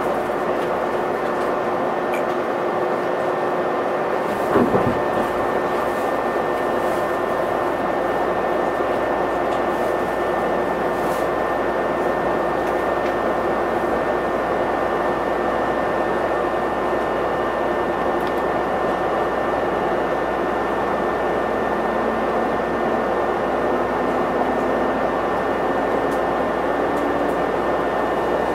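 Inside a JR West 213 series 0 electric train standing at a station: a steady hum with a fixed high whine, and a single thump about four and a half seconds in. Near the end a low tone climbs in steps as the train starts to pull away.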